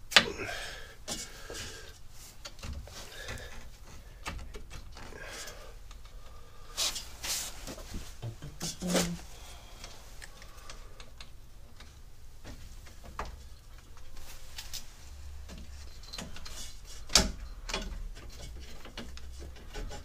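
Scattered clicks, knocks and scraping of hands working the air-conditioning pipe fitting and pipes loose from a car's condenser: metal and plastic handling. The loudest is a sharp click right at the start.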